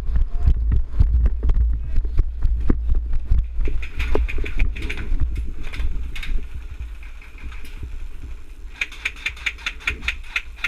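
Steps and gear knocks from a player moving in an airsoft game, with heavy wind or handling rumble on a body-worn action camera's microphone. About nine seconds in, a fast, even ticking starts and runs on.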